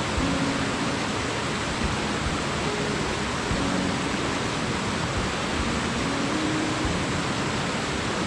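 Rushing water of a mountain stream, a steady hiss with no breaks.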